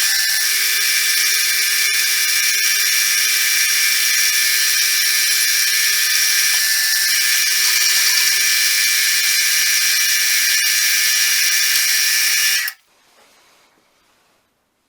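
Milling machine spindle running steadily with a high, multi-tone whine while the sides of the workpiece are touched off to find its centre. It is switched off and the sound cuts off sharply near the end.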